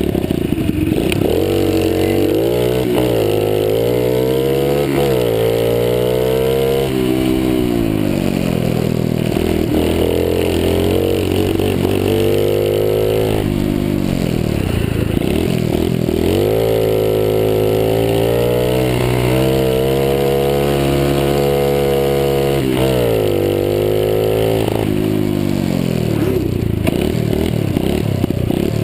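Honda Monkey's small single-cylinder four-stroke engine accelerating through the gears, its pitch climbing and dropping back at each shift, then falling away as the bike slows. A second run of upshifts follows about halfway through, ending with the engine settling back to a lower, steadier note.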